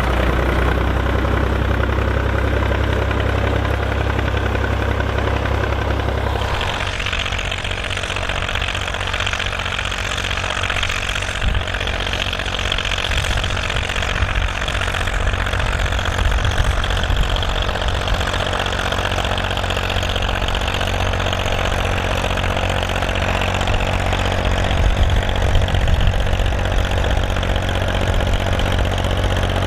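Volvo BM farm tractor diesel engine running steadily. About six and a half seconds in the sound changes abruptly: a deep, even hum gives way to a brighter, rougher engine sound.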